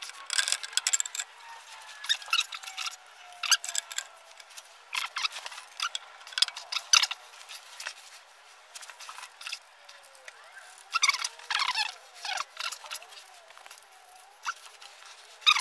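Hands working metal parts under a truck: rustling, scraping and scattered small metallic clicks and clinks as a gasket and nuts are fitted onto studs by hand.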